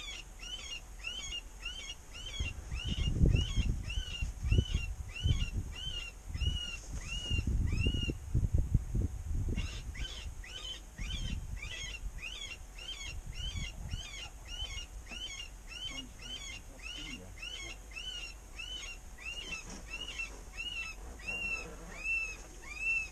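Electronic predator call playing a distress call for coyotes: a rapid, even series of short, high, rising-and-falling cries, about two a second, with a short break about eight seconds in. Low thumps on the microphone in the first half.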